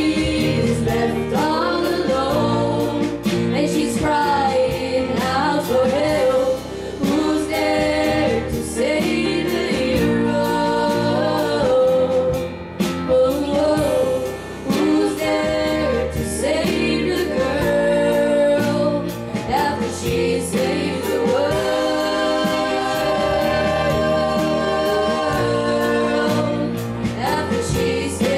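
Live pop ballad: a group of male and female backing vocalists singing in harmony, accompanied by a live band.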